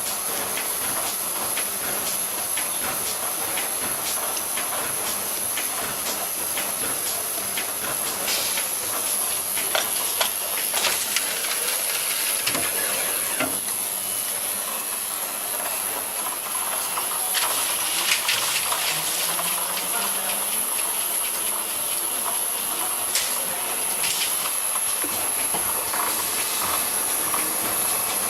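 Vial tray washing machine running: a steady spraying hiss with a constant high-pitched whine, and scattered clicks and knocks.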